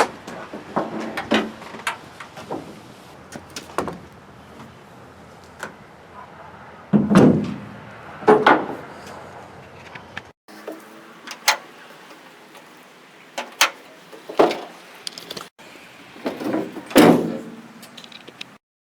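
A series of sharp metal clanks and knocks with quieter rattles between, from fitting a repaired tailgate hinge bracket back onto a Chevy Silverado pickup's tailgate.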